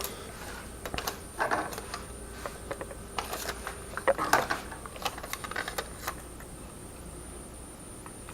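Crinkling rustles and light clicks of aluminized tape being handled and pressed around a metal vent pipe, in irregular bursts.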